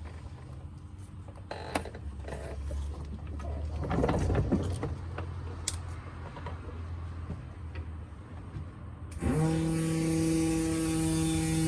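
Low workshop rumble with scattered clinks and handling noises, then about nine seconds in a machine starts up, its pitch rising quickly before settling into a steady hum with a hiss over it.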